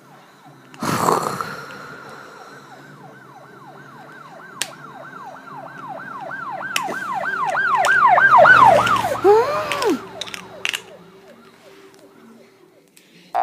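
A sudden loud hit about a second in, then a fast yelping siren sound effect sweeping up and down about three times a second, growing louder, and ending in a falling glide near the end.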